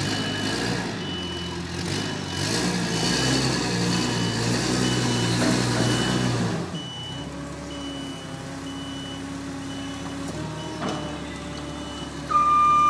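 A vehicle's reversing alarm beeping steadily, about three beeps every two seconds, over a running engine that quietens about halfway through. Near the end a second, louder and lower-pitched beeper starts up.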